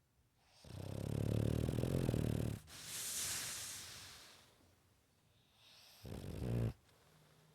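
A dog snoring: one long snore of about two seconds, a breathy hiss as the breath goes out, then a shorter snore near the end.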